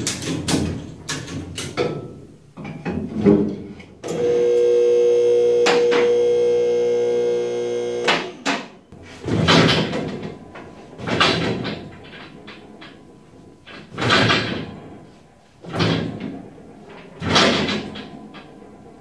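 Homemade rotisserie hoist lifting the steel rear bed off a 1966 Ford Bronco, with metal clicks, creaks and scraping. A steady two-note tone lasts about four seconds a few seconds in. Then come five swelling scraping strokes, one every one and a half to two seconds, as the bed comes up.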